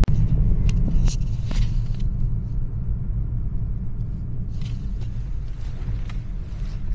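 Steady low road rumble inside a moving car's cabin, with a few light clicks in the first couple of seconds.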